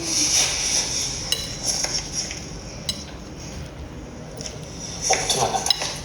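Cutlery and dishes clinking, a few separate sharp clinks over a steady background hiss.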